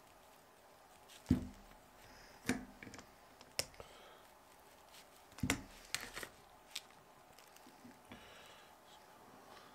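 Sharp metallic clicks and knocks, about half a dozen spread out with gaps between, as a rear brake caliper and a hand tool are handled during reassembly; the loudest comes a little over a second in, and there is a faint rustle near the end.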